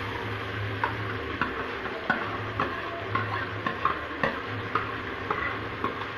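A spoon stirring onions and grated tomatoes frying in a pan, clacking against the pan about twice a second over a steady sizzle.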